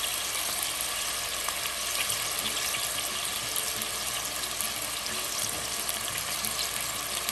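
Mutton and sliced onions frying in hot oil in a steel pot: a steady sizzle with small scattered crackles.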